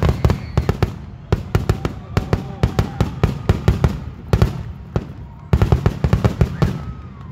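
Aerial fireworks going off in a rapid barrage, many sharp bangs a second in three clusters with short lulls about a second in and about five seconds in, thinning out near the end.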